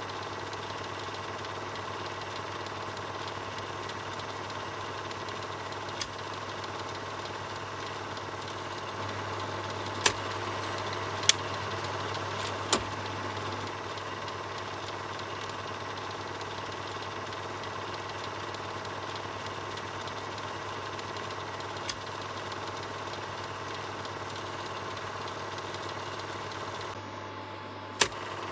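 Film projector running: a steady mechanical whir over a low hum, broken by a few sharp clicks, three of them close together about ten to thirteen seconds in.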